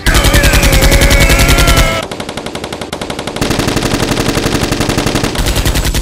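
Rapid automatic gunfire in long bursts of many shots a second, loudest over the first two seconds.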